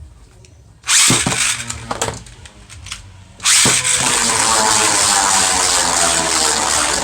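Two Beyblade spinning tops clattering and whirring in a battle stadium. A sudden loud rattle about a second in fades away, and from about three and a half seconds a steady loud whirring scrape with a slowly falling whine and a few sharp clicks as they strike each other.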